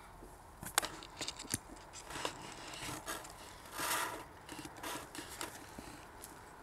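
A spade digging into soil among dry brambles: a series of short scraping and crunching strikes of the blade in the earth, with a longer rustling scrape about four seconds in.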